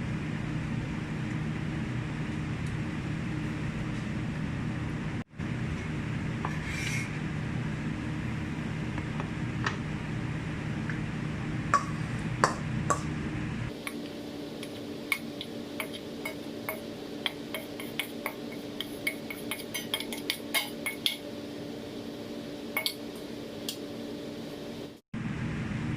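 Kitchen utensils clinking and tapping against dishes in scattered light strikes, busier in the second half, over a steady low hum.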